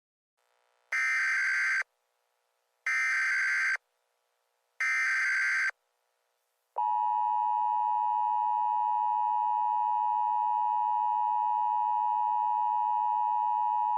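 Emergency Alert System header: three short blasts of SAME digital data tones, about a second each and a second apart, then the steady two-tone EAS attention signal starting about seven seconds in.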